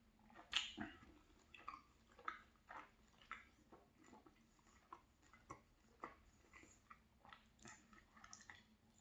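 Close-miked chewing and biting of a pastry: soft, irregular crunches and wet mouth sounds, the sharpest bite about half a second in.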